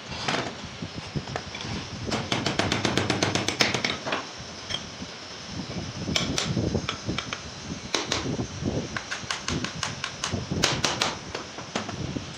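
Metal clicks, clinks and knocks as the end cover is fitted onto an electric motor's stator housing and its fastenings are turned down. About two seconds in there is a quick run of even clicks, roughly ten a second, lasting under two seconds, and short clusters of clicks follow later.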